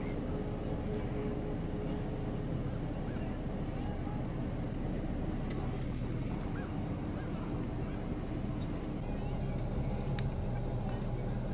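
A vehicle driving: a steady low rumble of road and engine noise, with a brief click about ten seconds in.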